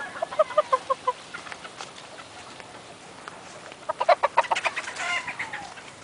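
Gamefowl chickens clucking: a quick run of about six short clucks near the start, then another burst of clucking about four seconds in.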